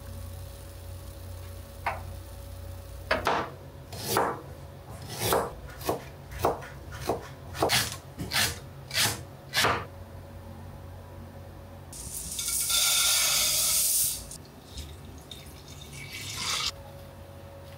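A knife chopping a Japanese leek on a cutting board: about a dozen crisp strokes, roughly one every half second. Then water runs from a tap for about two seconds, and near the end water is poured into a pot of rice.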